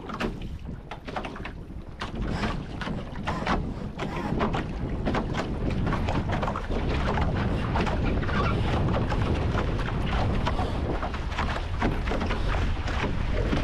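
Wind buffeting the microphone of a camera mounted on an A-Class catamaran, with water rushing past the hulls as the boat picks up speed. Many sharp clicks and taps are heard in the first half. The rush grows louder over the first few seconds and then holds steady.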